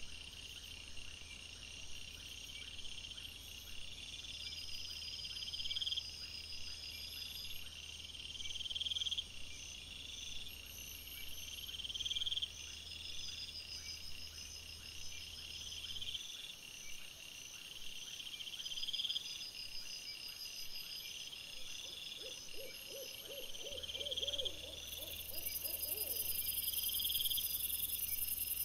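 Night-time insect chorus, crickets chirping in a high repeated phrase about every second and a half over a faint fast ticking. Near the end a lower call of about ten quick pulses rises and falls briefly.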